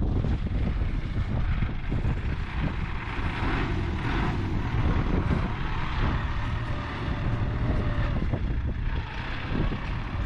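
Farm tractor engine running steadily while it sprays pesticide, with wind rumbling on the microphone.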